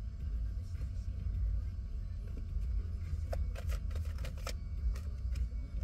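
Tarot cards being shuffled and handled, with a run of quick crisp flicks about three to four and a half seconds in, over the low steady rumble of a car cabin.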